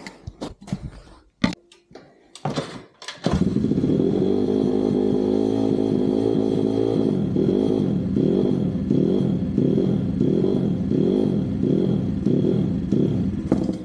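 Pit bike's single-cylinder engine running on its newly fitted carburettor: a few sharp pops, then it catches about three seconds in and runs steadily, then rises and falls in pitch about twice a second before cutting off abruptly near the end. It runs only 'sort of' right on the new carb.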